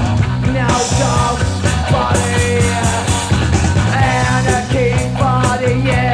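Punk rock band playing: electric guitar, bass guitar and drums, with a lead vocal singing over them. This is a 1976 demo recording, and the cymbals get brighter about a second in.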